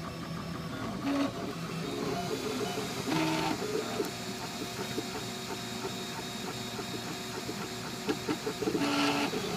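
CTC dual-extruder 3D printer printing in ABS: its stepper motors buzz in short steady tones that jump from pitch to pitch as the print head moves, over the even whir of its fans.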